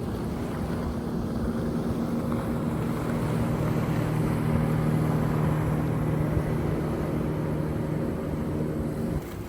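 A motor engine drones steadily, swelling a little in the middle, then breaks off just before the end.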